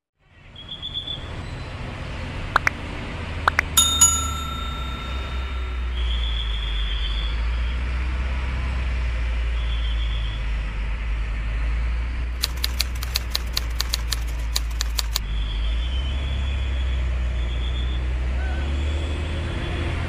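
Hino 500 dump truck's diesel engine running with a steady low rumble as the truck manoeuvres. A few metallic clinks and a short ringing ping come about three to four seconds in, and a quick run of clicks, about four a second, comes midway.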